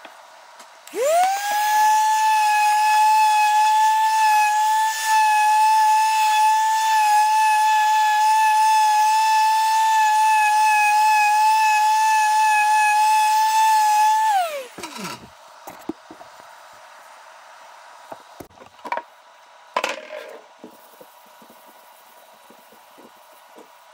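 Random orbital sander spinning up to a steady high whine while sanding the edge of a cherry wood plate, then winding down with a falling pitch after about thirteen seconds. A few light knocks and handling sounds follow.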